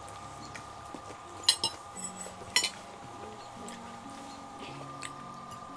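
Tableware clinking twice at a meal table, two sharp ringing clinks about a second apart, over faint steady background tones.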